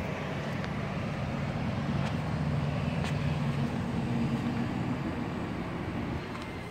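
An engine's steady low drone that grows louder toward the middle and eases off near the end.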